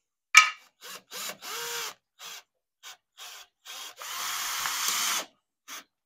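Cordless drill/driver running in short bursts as it drives screws through a plastic doorbell mounting bracket into the wall, with a longer run of about a second near the end. A sharp click about half a second in.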